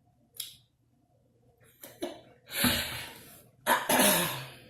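A woman coughing: two loud, breathy coughs in the second half, after a faint click about half a second in.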